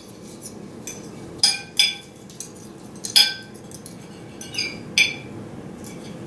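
Metal forks clinking and scraping against ceramic plates: a handful of sharp, irregularly spaced clinks, the loudest about three seconds in, over a faint steady hum.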